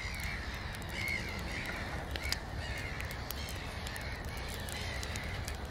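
Crows cawing repeatedly, faint, over a low steady hum with scattered light crackles.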